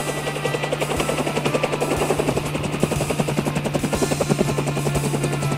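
Helicopter rotor sound effect, a rapid steady chopping, played for a toy army attack helicopter.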